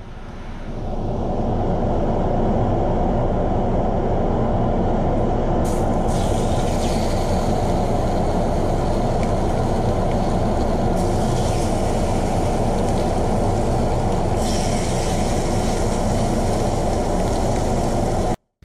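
A steady low rushing noise builds up over the first second or two and holds, while seasoned chicken breasts sizzle on a hot cast iron grill pan; the sizzle grows louder in steps as each breast goes in, about six, eleven and fourteen seconds in. Everything cuts off abruptly just before the end.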